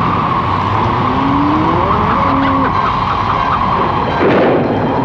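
A tropical storm on the soundtrack: steady, loud howling wind and rushing sea, with a few gliding and held tones around two seconds in and a louder surge about four seconds in.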